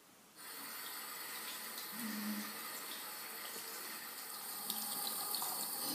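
Bathroom sink mixer tap turned on about half a second in, then water running steadily from the tap into the basin and over hands.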